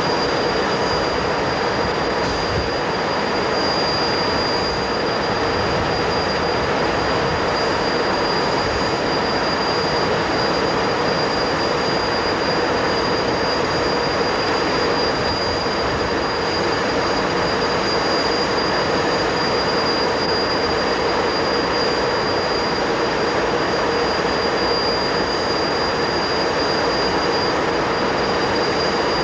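Diesel-electric locomotives idling, a loud, unchanging drone with steady whining tones laid over it.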